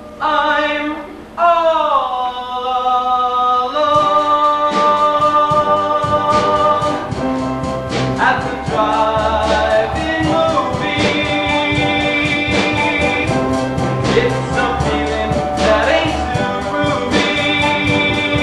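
A young man singing solo in a 1950s doo-wop-style ballad, recorded live on stage. He sings alone at first, slides down on a note, then the instrumental backing comes in about four seconds in and carries on under his held notes.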